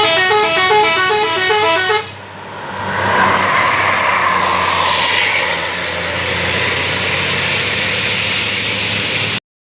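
Bus telolet Basuri horn playing a rapid, repeating multi-note tune, which stops about two seconds in. Then a steady mix of engine hum and road noise runs until it cuts off abruptly near the end.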